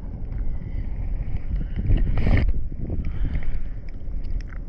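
Wind buffeting the microphone over choppy sea water, a steady low rumble with water lapping. A louder rush comes about two seconds in.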